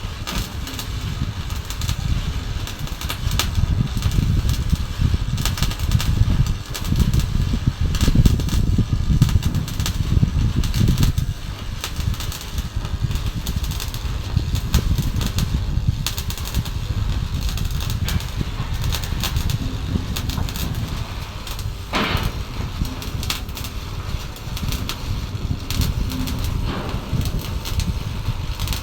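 Electric arc welding crackling and sizzling, a dense run of fine crackles over a steady low rumble.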